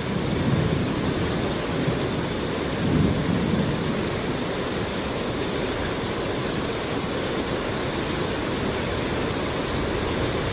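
Heavy rain and thunder: a steady hiss of rain with low rolling rumbles of thunder about half a second and three seconds in.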